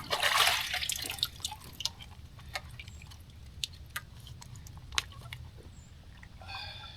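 Water being poured into a bottle as it is topped up: a short rush of water in the first second, then scattered drips and small clicks.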